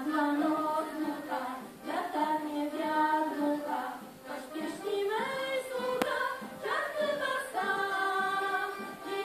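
A small mixed folk choir of men's and women's voices singing a song together, a woman's voice in front, with accordions playing along underneath. One sharp hit sounds about six seconds in.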